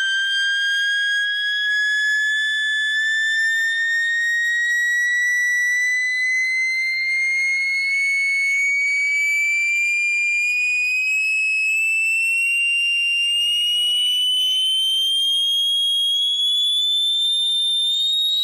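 Tannoy Monitor Silver 15-inch dual concentric speaker playing a slow sine-wave sweep from a signal generator: a single steady whistle-like tone gliding smoothly upward in pitch, with fainter higher tones above it.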